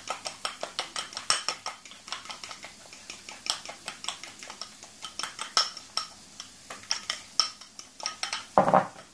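A metal utensil whisking raw egg and grated parmesan in a white ceramic bowl: quick, uneven clinks against the bowl, several a second. One louder, duller sound comes near the end.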